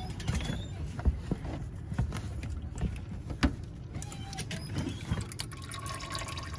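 Used engine oil draining in a thin stream from a car's oil pan into a drain pan, over a steady low rumble, with a few light knocks.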